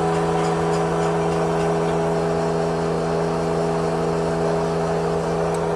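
Steady motor hum with several fixed tones, holding an even level throughout.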